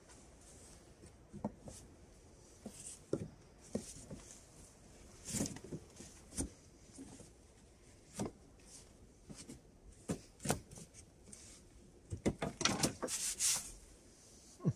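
Thin wooden poles being fitted by hand into a log shelter frame: scattered light knocks and rubs of wood on wood, with a cluster of louder knocks and scrapes near the end.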